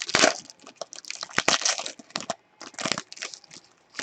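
Crinkling and tearing of a trading-card pack wrapper as it is ripped open by hand, in quick irregular bursts of crackle.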